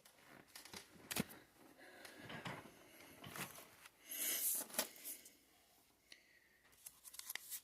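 Card packaging being handled: foil booster packs and the box's cardboard and plastic crinkling and rustling, with light taps and clicks, as the booster box is opened and packs are taken out. The loudest crinkle comes about four seconds in.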